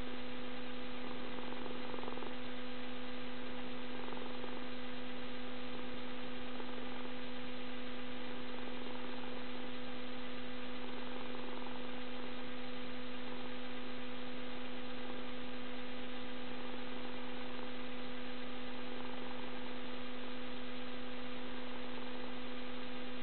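Ocicat snoring softly while asleep, faint breaths every few seconds, under a louder steady electrical hum.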